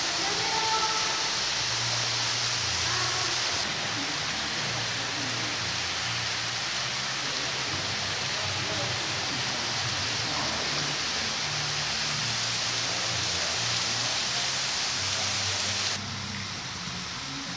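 Thin streams of water falling from the rim of a deep limestone sinkhole (cenote) and splashing onto the pool surface below, making a steady, rain-like spatter. It drops a little in level near the end.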